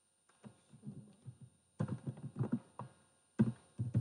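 Typing on a computer keyboard: quick runs of key clicks in a few bursts, louder in the second half.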